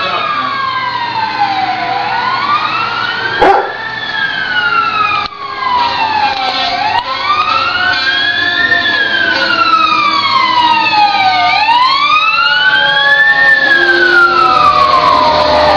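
Emergency vehicle siren wailing: a slow rise and fall in pitch, repeating about every five seconds. A sharp knock sounds about three and a half seconds in.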